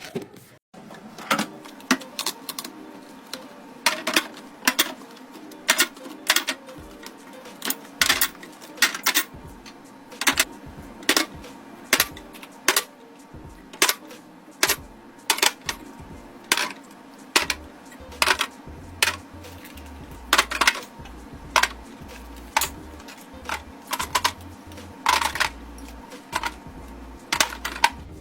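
Sharp clicks and clinks of containers and jars being handled and set down while restocking a fridge, about one or two a second, over a faint steady hum.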